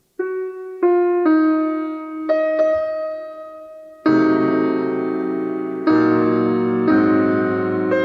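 Solo piano playing a slow passage. After a brief silence, single notes enter one at a time and each fades out, then fuller chords are struck about four seconds in, once every second or two.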